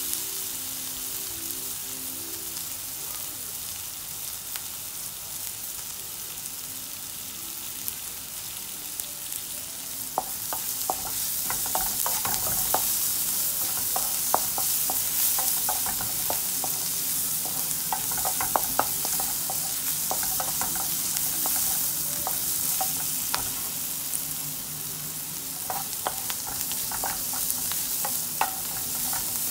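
Sliced onions sizzling in oil in a frying pan while a wooden spatula stirs them, clicking and scraping against the pan. The sizzle grows louder about ten seconds in, and the spatula strokes come more often from then on.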